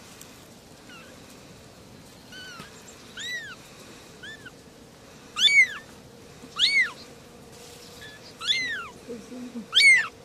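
Kittens mewing: a series of about eight short, high-pitched mews, each rising and falling in pitch, roughly one a second, louder in the second half.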